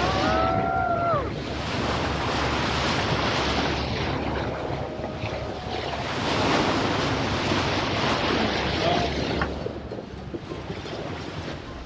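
Water rushing and splashing along a moving boat's hull, with wind buffeting the microphone and a steady low engine hum underneath. Near the start a brief high cry is held, then drops away about a second in. The rush eases about three-quarters of the way through.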